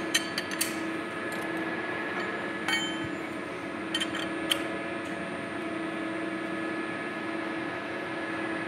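Short metallic clicks and clinks of a ratcheting box-end wrench turning a hex bolt and washer tight: a few together near the start, then single ones around three and four seconds in, over a steady background hum.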